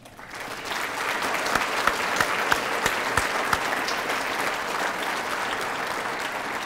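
A large audience applauding: the clapping starts at once, builds within the first second and then holds steady.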